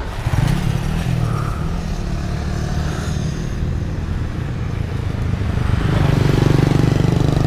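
Motorcycle engine running close by: its pitch rises briefly just after the start, holds steady, then grows louder again near the end.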